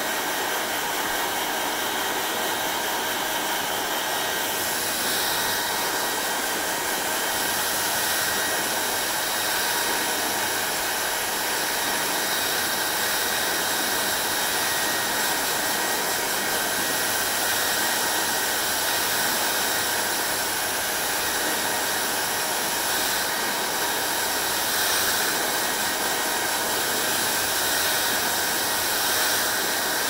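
Hand-held hair dryer blowing steadily: a constant rush of air with a faint motor whine, turning a little brighter about five seconds in.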